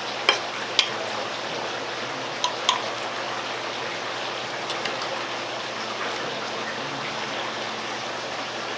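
Steak knife and fork clinking and scraping against a ceramic plate while slicing a grilled ribeye, a few sharp clicks near the start and a pair about two and a half seconds in, over a steady background hiss like running water.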